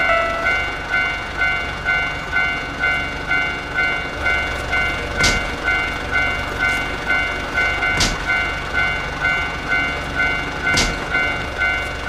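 Level crossing warning bell clanging about twice a second over the low rumble of a passing freight train. Three sharp knocks cut through, about five, eight and eleven seconds in.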